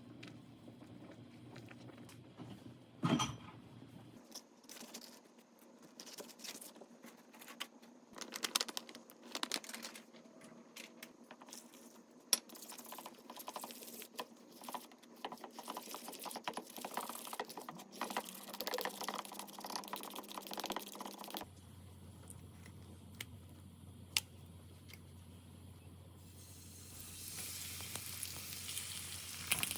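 Kitchen preparation sounds: scattered light clicks, taps and knocks of utensils and dishes over several short stretches. About three-quarters of the way through, a steady hiss of food frying in a pan begins.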